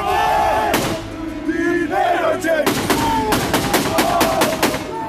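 Several men yelling over one another, then, a little over two and a half seconds in, a rapid string of gunshots, about five a second, with the yelling carrying on over them.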